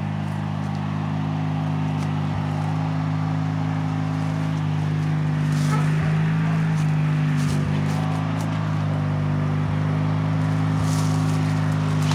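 A motor running steadily: an unchanging low hum, with faint rustles about six seconds in and near the end.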